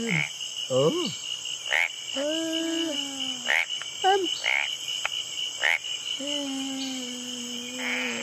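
Frog croaking sound effect: a string of clicks, quick chirps and held croaks over a steady high insect chorus.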